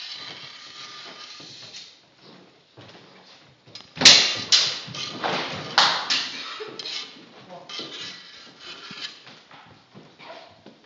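Rapier and sabre blades clashing in close sparring: one loud, sharp hit about four seconds in, followed quickly by several more blade strikes, with lighter knocks scattered after.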